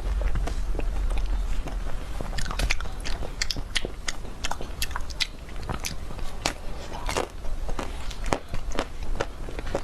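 Biting into and chewing a chocolate-coated ice cream bar close to the microphone, the hard chocolate shell cracking in many short, sharp crackles that come thickest from about two seconds in.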